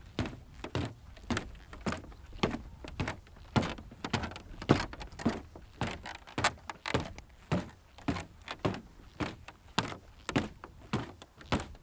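Footsteps walking at a steady pace on a wooden pathway, about two steps a second, each a sharp knock of a shoe on the boards, some steps landing as a double knock.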